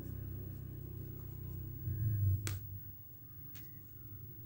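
Steady low hum with a sharp click about two and a half seconds in and a fainter click about a second later: small handling sounds as a button is set onto a crocheted piece.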